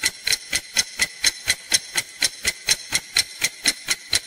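Countdown-timer ticking sound effect: an even, fast tick at about four ticks a second, marking the seconds of thinking time before the answer is revealed.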